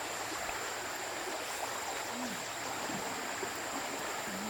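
Steady rushing of running water, like a stream, with a thin high steady tone above it.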